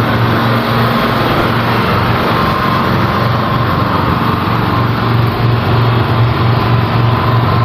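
Generator engine running steadily: a loud low pulsing hum with a faint high tone above it.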